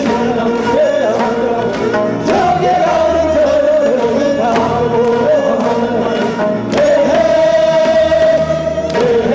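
Korean Yeongnam folk work song sung by several voices, a wavering melody line over a steady tapped beat.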